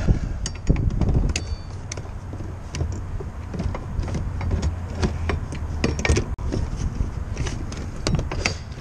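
Metal tire-changing tools clinking, rattling and knocking as they are handled and fitted back into their storage compartment, with many scattered clicks.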